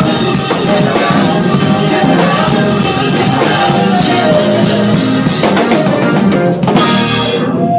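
Live band playing loudly, with the drum kit to the fore over keyboards and singers. The music ends on a final crash just before the end.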